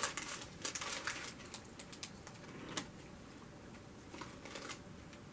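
Eating noises from a Crunchwrap Supreme: scattered crackling clicks, thickest in the first second or so, with a few more near the middle and around four seconds in.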